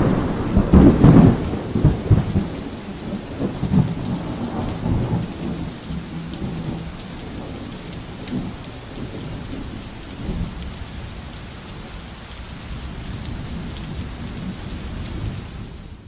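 Thunderstorm: a deep roll of thunder loudest about a second in, with further rumbles over steady rain, the whole slowly fading away.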